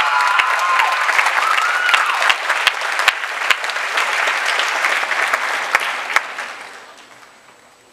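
Applause from an audience and from contestants clapping on stage: dense clapping that dies away about seven seconds in.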